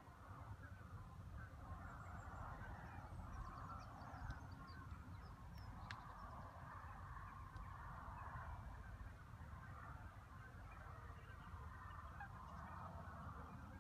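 Geese honking faintly on the water, their calls running on without a break, with a few faint small-bird chirps above them.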